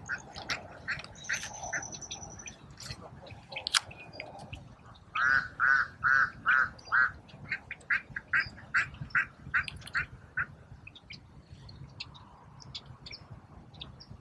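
A bird calling in a fast series of short, repeated calls, two or three a second. The loudest run of five calls comes about five seconds in, and the calls fade out after about ten seconds.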